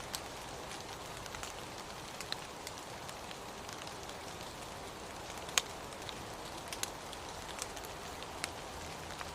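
Steady rain with scattered sharp ticks of single drops landing, the strongest a little past halfway.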